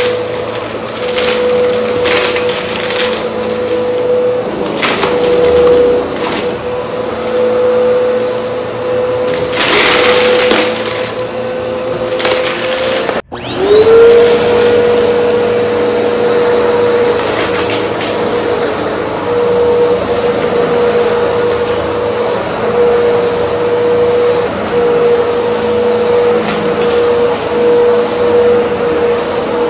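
Upright bagless vacuum cleaner running on a rug with a steady motor whine, with short crackly bursts as confetti and debris are sucked up in the first half. About halfway through, the sound breaks off for an instant and the motor comes back with a quick rising whine as it spins up to speed, then runs steadily.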